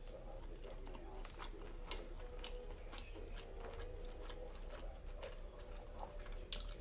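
A person chewing stuffed squid close to the microphone: faint, irregular small wet clicks of the mouth.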